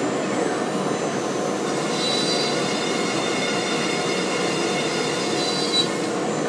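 CNC router spindle cutting bolt holes in MDF with a quarter-inch upcut spiral bit, over the steady rushing noise of the dust collection. A thin high whine comes in about two seconds in and stops near six seconds.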